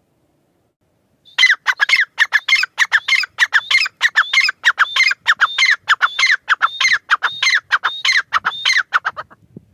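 Grey francolin calling: a fast, continuous series of shrill, repeated notes that starts about a second in and stops shortly before the end.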